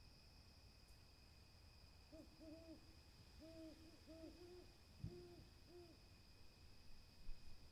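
An owl hooting faintly in the distance: a run of about nine short, low hoots in three bunches, over a steady high-pitched hum. There is a soft low thump partway through and another near the end.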